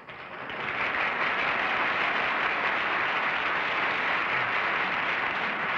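Studio audience applauding, rising over the first second and then holding steady.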